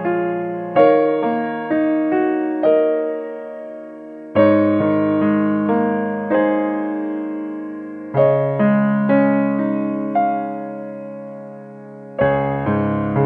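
Slow background piano music: single notes and chords struck and left to fade, with a fresh chord about every four seconds.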